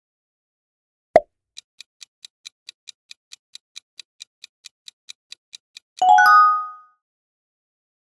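Quiz-game sound effects: a single pop about a second in, then a fast countdown-timer ticking at about five ticks a second for some four seconds. Near the end a bright chime of several ringing tones marks the answer reveal.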